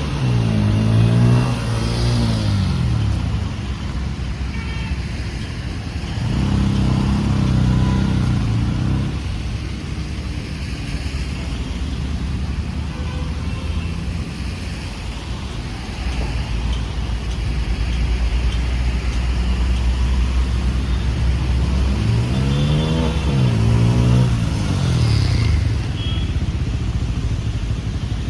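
Bajaj Pulsar N160 motorcycle engine running under way over a steady low road rumble. The engine pitch climbs and drops back near the start and again about 22 seconds in, and holds steadier in between.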